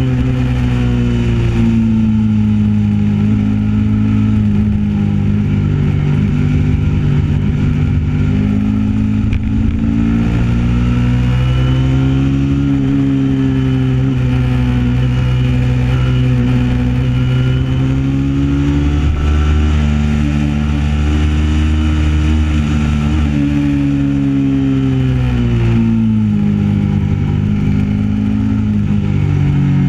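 Kawasaki Ninja 650 parallel-twin engine running under way, its pitch rising and falling as the throttle is rolled on and off through the bends, with a sharp drop and climb near the end.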